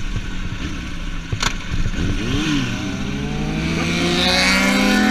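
Kawasaki ZX-6R sport bike's inline-four engine running while the bike rides over rough grass off the track, with jolting clatter and a sharp knock about a second and a half in. From about two seconds in the engine revs up in rising pitch as the bike accelerates back towards the track, and another motorcycle goes by near the end.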